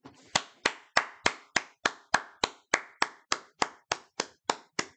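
One person clapping steadily, about three claps a second.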